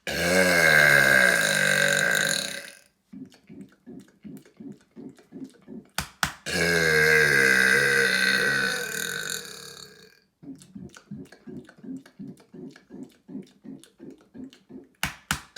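A man's deliberate long, loud burps, two of them: the first about two and a half seconds, the second about four seconds, starting around six seconds in. Between them are runs of short low pulses, about four a second, with a sharp click just before the second burp.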